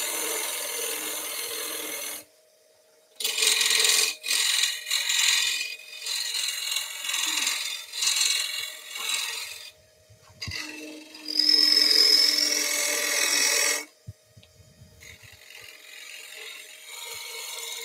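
A turning gouge cutting the outside of a spinning wooden bowl blank on a wood lathe: the rasping hiss of shavings coming off in several passes, with two short pauses, over the steady hum of the lathe. A brief rising squeal of the tool on the wood comes about two-thirds of the way through, and the cutting goes lighter near the end.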